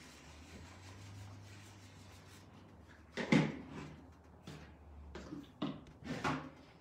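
Paint jars and lids being handled: a few short knocks and clatters, the loudest about three seconds in, over a low hum that stops a little after five seconds.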